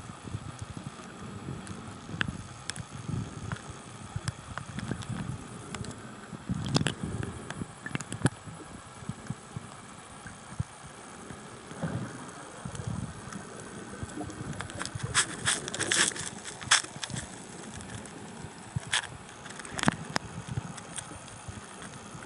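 Underwater sound just below the surface: an irregular low rumble of moving water with scattered sharp clicks and crackles, which come thickest about two-thirds of the way through.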